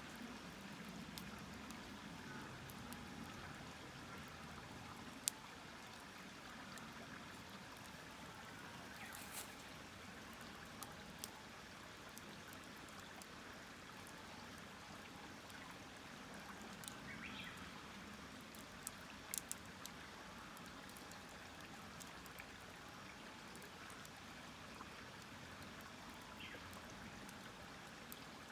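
Wood campfire burning, with a faint steady hiss and scattered sharp crackles and pops, a quick cluster of them a little past the middle.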